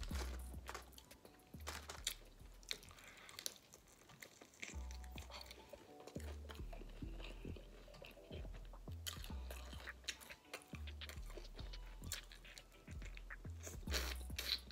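Close-up chewing and crunching of fried chicken wings, with sharp bites and wet mouth sounds, over background music with a low bass line.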